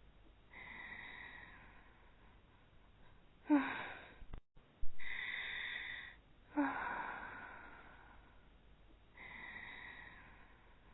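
Cartoon-style snoring in a loop: a thin, high whistling out-breath, then a sudden loud rasping snore on the in-breath, about three breath cycles in all. The loud snores come about 3.5 and 6.5 seconds in, with a brief dropout just before the second whistle.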